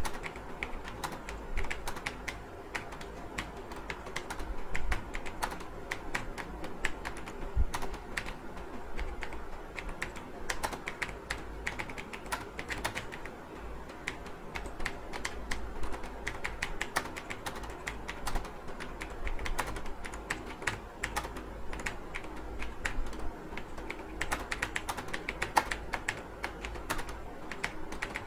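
Fast, continuous typing on a computer keyboard: an unbroken stream of key clicks, several a second, over a faint low hum.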